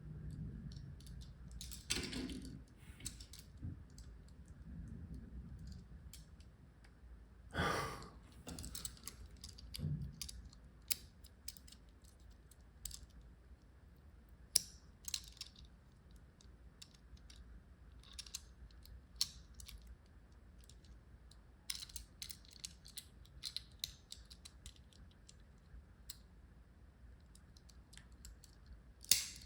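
A small die-cast toy car and its packaging being handled while unboxing: scattered small clicks and taps, with a few louder rustles about two and eight seconds in.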